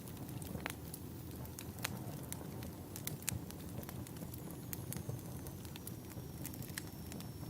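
Logs burning in a fireplace: a steady low rumble of flames with irregular sharp crackles and pops. A faint, thin, high whistle comes in about halfway through, slides down a little and holds.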